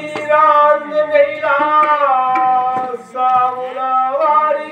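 A single high voice singing long, held notes that waver slightly, with a short break between phrases about three seconds in.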